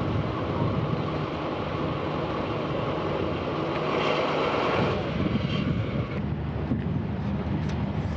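Steady mechanical rumble with a low hum from the train rolling a Soyuz rocket out on its rail transporter; the higher hiss thins out about five seconds in.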